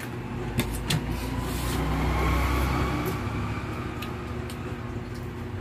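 A low rumble that swells and fades over a couple of seconds, with a few sharp clicks of utensils against plates.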